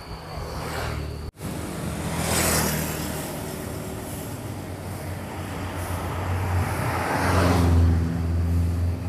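Road traffic: motor vehicles passing close by, one about two and a half seconds in and another late on, over a steady low engine hum. A steady high whine is there at first and cuts off abruptly a little over a second in.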